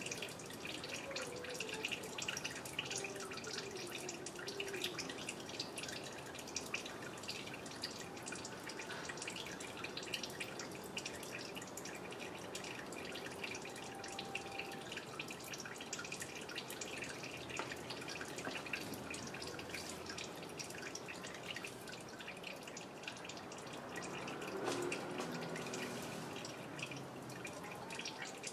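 Automatic transmission fluid draining from the pan of a Mercedes 722.6 automatic gearbox, falling in a thin stream and dripping in a steady, irregular patter.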